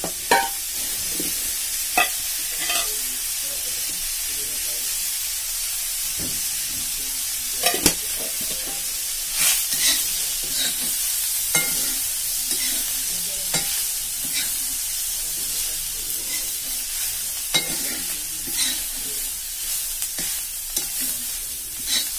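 Chopped onions sizzling steadily in hot oil in a black iron wok while a metal spatula stirs and scrapes them around the pan. Sharp clicks come every few seconds.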